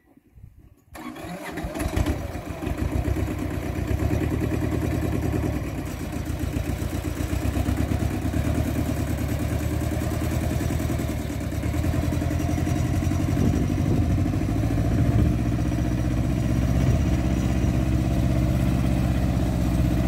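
Small compact tractor's engine starting about a second in, then running steadily as the tractor drives off hauling a large log.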